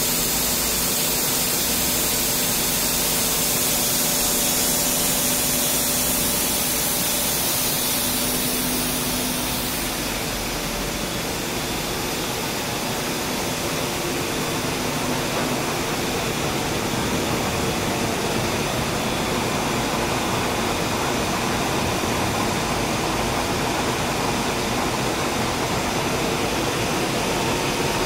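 Steady industrial machinery noise in a can-making factory: a constant hum and rushing hiss, with the highest hiss easing off about ten seconds in.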